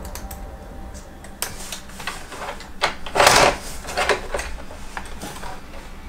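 Scattered small clicks and rustles of hands handling parts inside an opened iMac's aluminium chassis, with a louder scraping rustle about halfway through.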